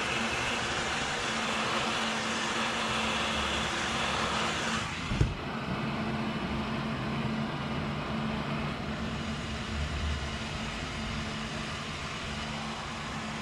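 Heat gun blowing hot air steadily onto vinyl to soften it, a hiss over a low hum. About five seconds in the hiss turns duller and there is a single thump.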